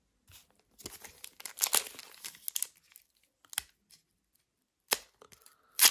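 Foil wrapper of a Pokémon trading-card booster pack crinkling as it is picked up and handled, in short irregular spells of crackling with a few sharp clicks and one louder crackle near the end.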